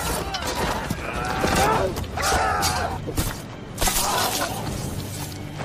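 Close-quarters sword fight: metal blades clashing and striking, with men yelling and crying out between the blows.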